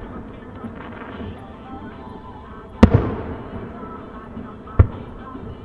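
Aerial firework shells bursting: two sharp bangs about two seconds apart, the first trailing off in a rolling echo. Music plays faintly underneath.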